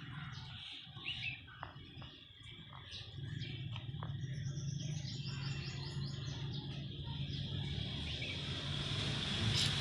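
Small birds chirping, with one quick trilled run partway through. About three seconds in a low steady hum comes in and keeps growing louder, and a hiss rises near the end.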